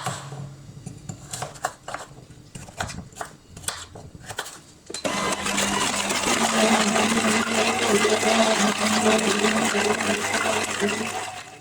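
A few clicks and knocks, then about five seconds in an electric juicer motor starts and runs steadily, pressing carrots. It stops shortly before the end.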